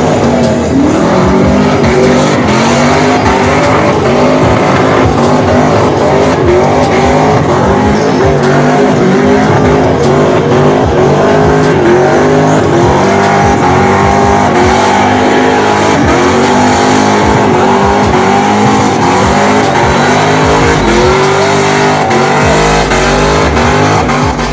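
Drift car sliding sideways at full throttle, its engine note rising and falling in pitch over and over, with tyres squealing.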